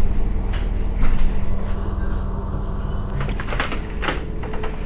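Irizar i2e battery-electric bus standing with a steady hum from its running equipment. About three seconds in comes a quick run of clicks and rattles.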